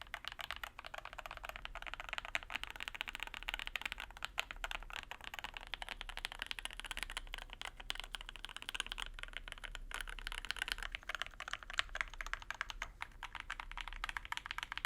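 Continuous typing on an Endless-80 top-mount mechanical keyboard with lubed and filmed JWK Lilac linear switches on an aluminium plate and GMK Laser keycaps, plate foam and tape mod fitted, giving a deeper, poppy keystroke sound.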